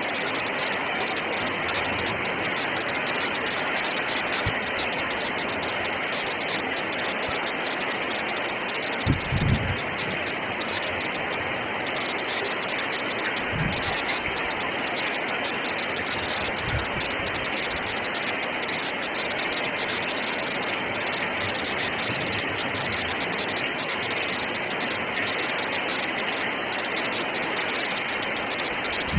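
Very heavy rain pouring steadily onto clay roof tiles, a dense even hiss of rain and runoff. A couple of brief low thumps about nine and thirteen seconds in.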